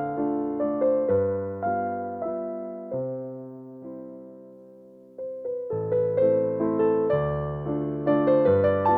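Background music on piano or electric piano: notes struck in a steady rhythm that thin out and fade a few seconds in, then start up again about halfway through.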